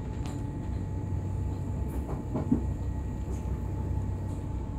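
Passenger train running along the track, heard from inside the carriage: a steady low rumble, with a few faint clicks from the wheels about two seconds in.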